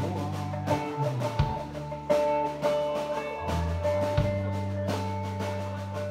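Live band playing an instrumental passage: electric bass holding long low notes under a guitar line, with sharp snare and tom strikes from a drum kit played standing.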